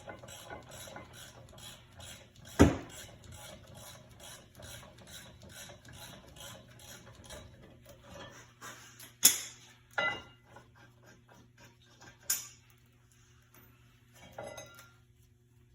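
Hand tools working on a car's rear brake assembly: a run of rapid, even ratchet-like clicks for about the first eight seconds, then several sharp metal clanks of tools and parts being set down or knocked.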